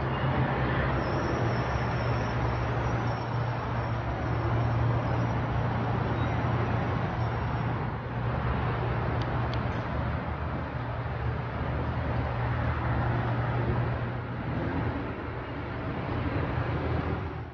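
A steady rumbling noise with a low hum.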